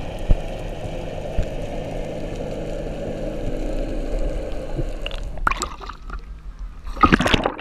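Muffled underwater noise with a faint steady hum while the camera rises through the sea, then water splashing and gurgling around the camera as it breaks the surface about five seconds in, with a louder splash near the end.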